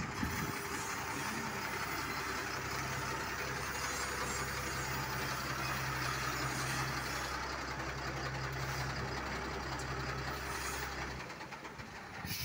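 A heavy diesel engine idling steadily with a low hum, which cuts off about eleven seconds in.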